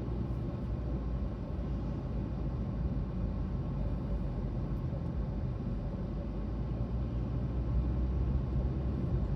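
Steady low rumble of a moving car heard from inside the cabin: engine and tyre road noise while driving.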